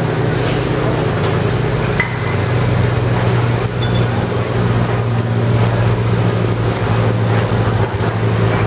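Steady low engine drone of construction machinery running, under a haze of street traffic noise.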